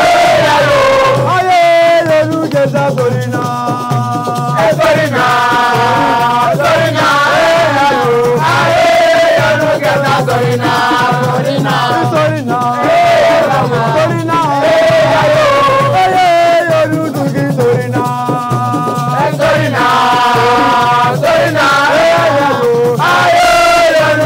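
Loud music: a voice singing a repeating melodic line over a steady shaker-rattle rhythm.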